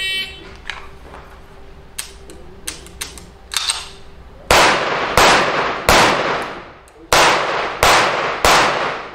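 Shot-timer start beep, then a few faint sharp clicks, then six loud pistol shots in two strings of three, each about two-thirds of a second apart, with a short pause between the strings.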